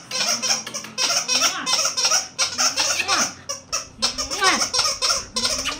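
A woman laughing and giggling in many short bursts.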